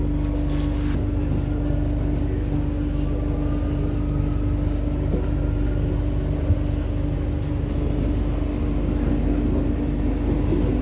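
Metro train running, heard from inside the carriage: a steady low rumble with a constant hum, and a faint whine that rises slowly a few seconds in.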